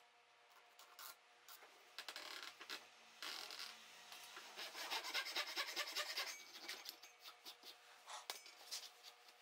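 Hand file rasping across a wooden block clamped in a vise: a few light knocks, then a fast run of quick scraping strokes through the middle that thins out into scattered strokes near the end.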